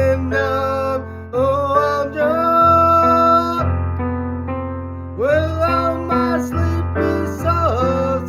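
A solo voice singing a slow song over keyboard chords. One note is held for about a second, then the voice drops out for a moment while the keyboard carries on, and the singing comes back in.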